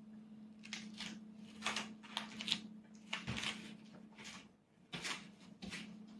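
Soft, scattered clicks and rustles of a toddler eating, roughly one or two a second: a spoon working in a rice bowl and small mouth and hand noises, over a steady low hum.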